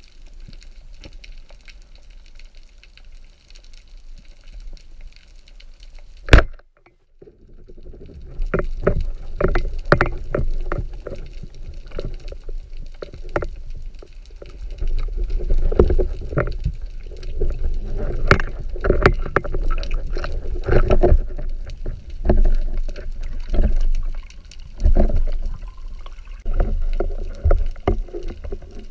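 Underwater sound of a speargun: one very sharp shot about six seconds in. After it comes a louder rushing of water with irregular knocks and clicks as the diver swims and handles the speared red mullet.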